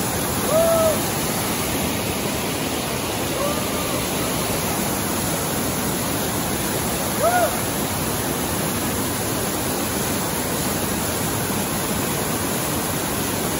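Whitewater cascade rushing steadily over sandstone rock. Three short, high, rising-and-falling calls stand out over it: one near the start, one about three and a half seconds in, and one about seven seconds in.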